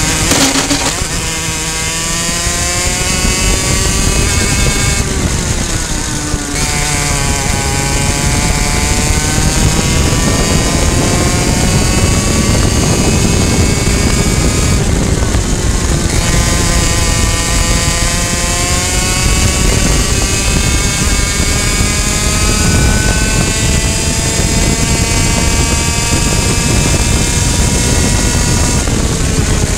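Two-stroke racing kart engine at high revs on track, its pitch climbing as it accelerates, with two brief drops around five and fifteen seconds in as the throttle is lifted for corners, over steady wind and chassis noise.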